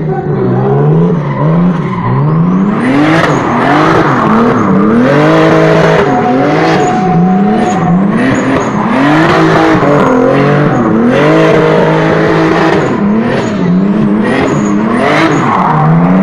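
BMW E36 drift car's engine revving up and down over and over, sometimes held briefly at the top, as it drifts in circles. The rear tyres squeal and hiss as they spin.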